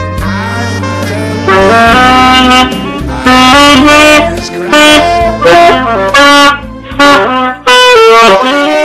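Music: a saxophone playing a melody in loud separate phrases, coming in about a second and a half in over a softer, steady accompaniment.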